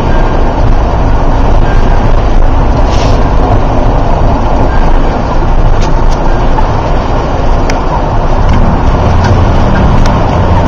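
Steady, loud rumble of a motor vehicle driving on the highway, with a few faint brief clicks.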